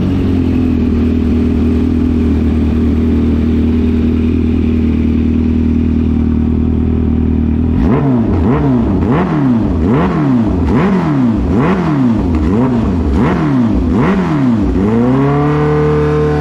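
Kawasaki H2's supercharged inline-four running through a Vandemon full titanium exhaust with the baffle removed: a steady idle, then from about halfway a quick series of about nine throttle blips, each rising and falling in pitch, before settling into a steady, higher idle near the end.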